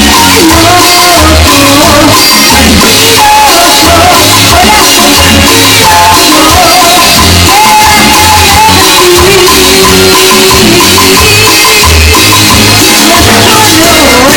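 A band playing loud music, with a drum kit keeping a steady beat under a melody line.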